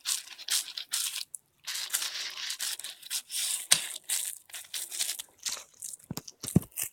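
A pet chewing and tearing at a cat toy in quick, irregular bouts of crinkly ripping and crunching, with a couple of soft thumps near the end.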